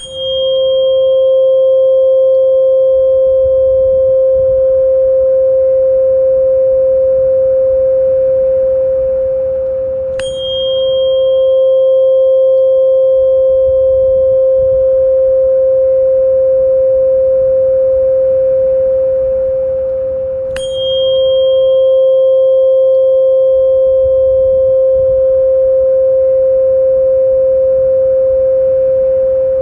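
Sound-therapy frequency tone: a loud, steady, pure mid-pitched ringing tone with a faint higher overtone. It is restruck three times, about every ten seconds, and each strike opens with a brief bright ping.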